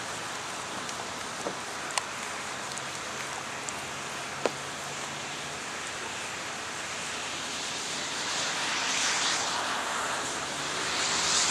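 Steady rushing of wind outdoors, swelling louder twice in the last few seconds, with a few sharp clicks.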